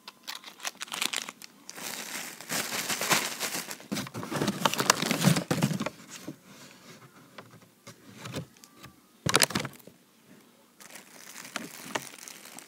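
Plastic candy wrappers crinkling as they are handled, in irregular bursts, with a short loud burst about nine seconds in.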